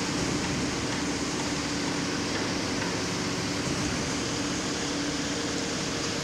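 Steady drone of construction-site machinery: an even noise with a low, constant hum.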